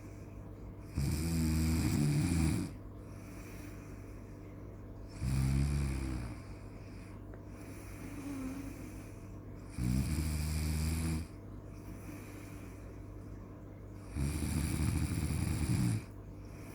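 Loud snoring: four long snores about four to five seconds apart, each lasting about a second and a half, with a fainter breath in between.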